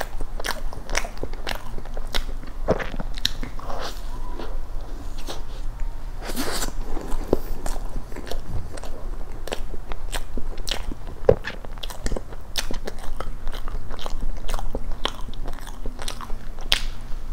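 Close-miked chewing and biting of a soft fresh-cream castella cake: a steady run of small, irregular mouth clicks and smacks.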